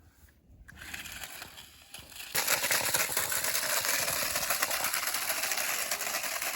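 Toy RC stunt car running over rough ground: a dense, crackling rattle of wheels and small motor that starts suddenly about two seconds in and then keeps going.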